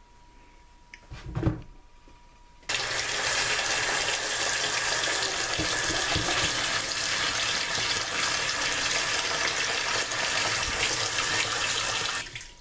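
Kitchen tap running hard, cold water pouring into a bowl of just-boiled potatoes to cool them. The water comes on suddenly a few seconds in and shuts off near the end, after a short knock from handling.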